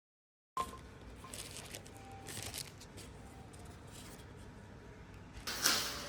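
Quiet rustling and light scraping of hands handling small parts and packaging, with a few short tearing-like strokes; a louder steady hiss-like noise comes in near the end.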